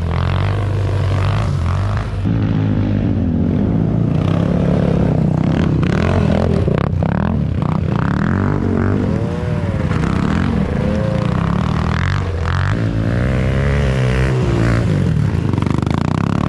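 An off-road vehicle engine running and revving, its pitch rising and falling several times.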